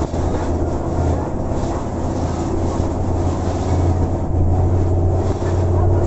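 Safari tour vehicle's engine running steadily as it drives along, a loud low hum that holds steady throughout.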